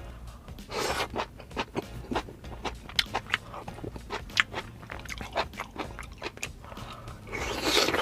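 Close-miked mukbang chewing and biting of food: many small wet clicks and crunches, with a longer, louder stretch of chewing noise about a second in and again near the end.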